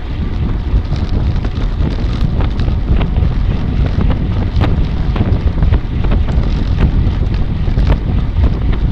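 Strong wind buffeting the microphone, a heavy low rumble throughout, with a few sharp ticks scattered through it.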